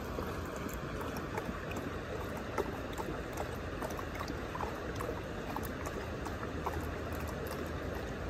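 Bluetick coonhound lapping water from a creek, small wet clicks coming about three a second, over the steady sound of flowing water.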